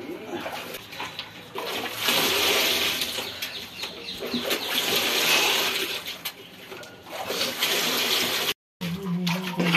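Hot sugar syrup for jalebi poured from a height in thin streams into a metal karai, splashing and gurgling as it is cooled. The pour swells and eases a few times and breaks off suddenly near the end.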